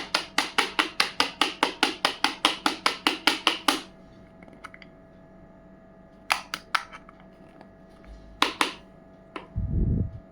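Small plastic pieces of a miniature toy kitchen set clicking: a fast, even run of about six sharp clicks a second for nearly four seconds, then a few scattered clicks and a low thump near the end.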